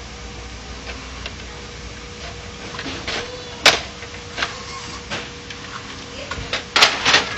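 Plastic clicks and knocks from the grey outer housing of an HP LaserJet 1010 laser printer being unclipped and lifted off its metal chassis. There is one sharp clack about midway and a cluster of louder knocks near the end, over a faint steady hum.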